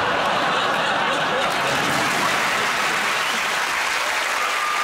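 Studio audience applauding: a steady, dense clatter of clapping, with some laughter mixed in.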